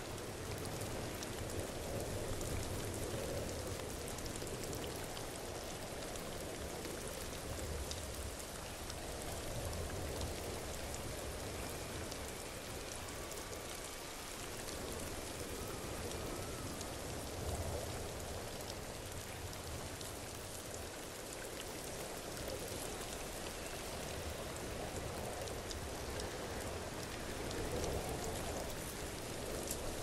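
Waterfall: a steady rush of falling, splashing water that swells and eases every several seconds.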